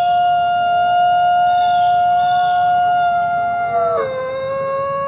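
Coyote howling: one long, steady held note that drops to a lower pitch about four seconds in.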